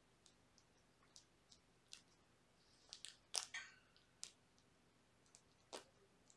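Faint scattered clicks and scuffs of kittens' paws and claws on their toys and scratcher as they play, with a short cluster of louder scratchy clicks about three seconds in.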